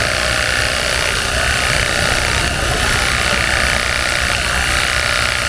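Worx Hydroshot 20V cordless pressure washer spraying a steady jet of water against a truck's metal grille: an even, continuous hiss, with a low rumble underneath.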